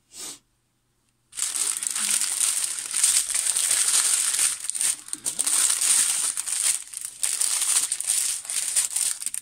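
Plastic bags crinkling as a strip of sealed bags of diamond-painting drills is handled, starting about a second in and going on steadily with brief dips.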